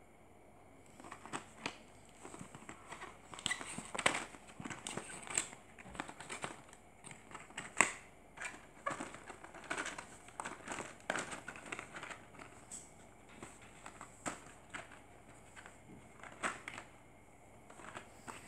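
Clear plastic blister packaging crinkling and clicking as a hand presses and handles it, in irregular sharp crackles, loudest about four and eight seconds in.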